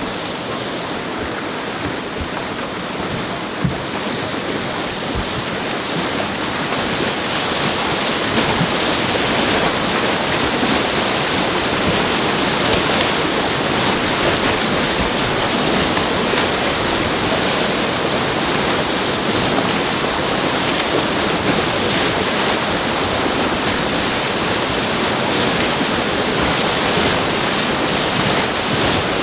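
Rushing whitewater of a river wave breaking around and over a kayak's bow, a steady, loud wash of water and splashing that grows louder over the first several seconds. A brief knock comes a little under four seconds in.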